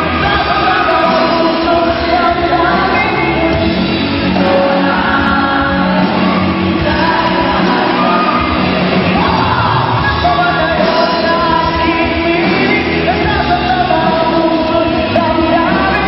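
A live band playing loudly, with electric guitars, drums and singing.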